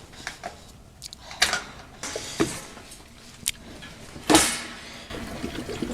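A few sharp clacks and knocks of an oil heater's fuel tank and cap being handled for refilling, the loudest about four and a half seconds in.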